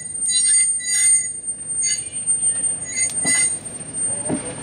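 Narrow-gauge freight train's wheels squealing against the rails in short, repeated high-pitched squeals, over the rumble of the passing wagons.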